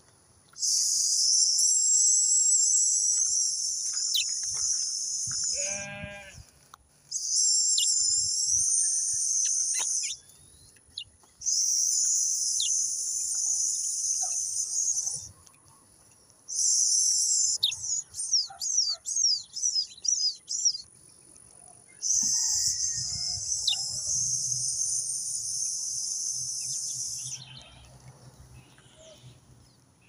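A brown towa-towa finch singing: five long, fast, warbling song phrases of several seconds each, separated by short pauses, one of them ending in a run of quick down-slurred chirps. A single short bleat about six seconds in.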